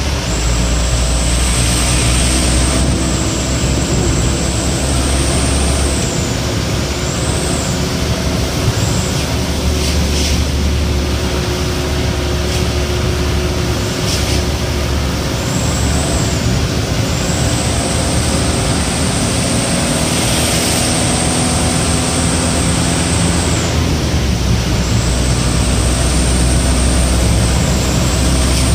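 Truck engine running steadily at road speed, heard from inside the cab as a strong low drone. A thin high whine rises and falls several times over it.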